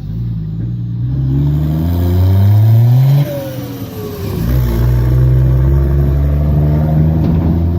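Volkswagen D24 straight-six diesel accelerating hard. Its revs climb for about three seconds, drop suddenly as it shifts, then climb again and hold high.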